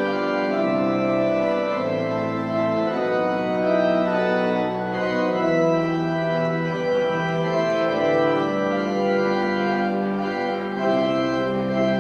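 Church organ playing music in slow, sustained chords, each held for a second or more before moving to the next.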